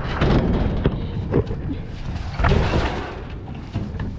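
Knocks and scraping of a metal hot water heater being handled and slid onto a trailer: a few sharp bangs in the first second and a half, then a longer scraping rush in the middle.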